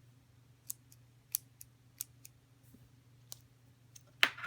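Small, sharp plastic clicks from a mechanical pencil being handled, about seven of them at irregular intervals, the loudest near the end, over a faint steady hum.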